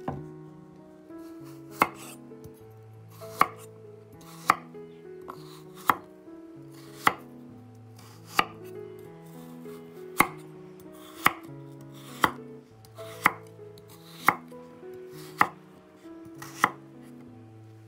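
Chef's knife chopping peeled carrots into chunks on a wooden cutting board: about a dozen single crisp strikes, roughly one a second, over soft background music.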